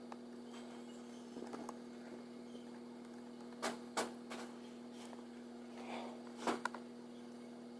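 A faint steady hum with a few isolated sharp clicks or taps.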